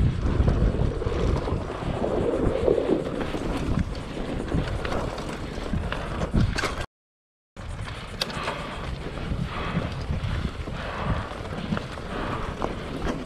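Mountain bike being ridden on a dirt trail: wind buffeting the microphone over tyre rumble, with scattered knocks and rattles from the bike. The sound drops out completely for under a second about seven seconds in.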